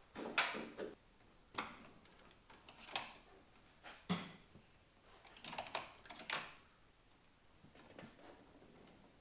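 Scattered light clicks and metallic clanks of hand-tool work on the car's raised hood and engine bay, irregularly spaced about a second apart, with a short cluster of clicks about two-thirds of the way through.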